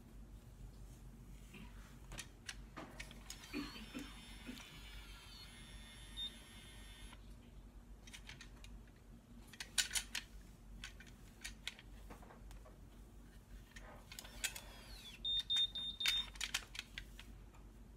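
Conair Curl Secret automatic hair curler in use: plastic clicks as it is clamped and released on a lock of hair, a short high beep about six seconds in, and a longer beep of about a second near the end, the signal that the curl is done.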